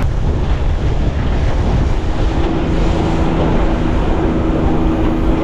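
Small aluminium boat under way on choppy sea: wind buffets the microphone over the rush and slap of water along the hull and the running Yamaha 40 outboard. A steady hum comes in about two seconds in.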